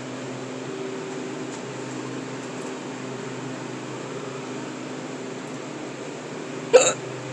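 Steady hum of a walk-in cooler's fans, with one sharp hiccup near the end.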